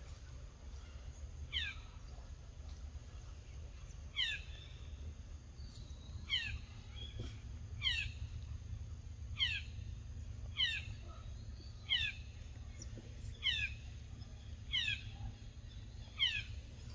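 A bird in the forest repeating a short falling call, about ten times, a little over a second apart, over a steady low hum.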